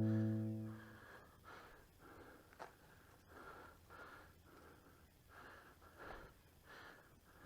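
A held guitar chord fades out in the first second, then a person breathes hard, with quick, faint breaths about two a second, as on a steep climb.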